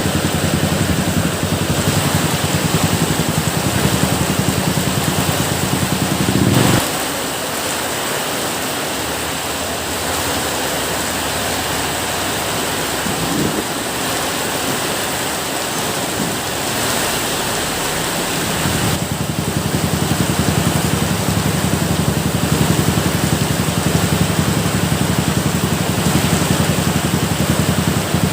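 Steady rain, a dense hiss across the whole range. Under it a low, rapidly pulsing rumble cuts out after a brief swell about seven seconds in and comes back about two-thirds of the way through.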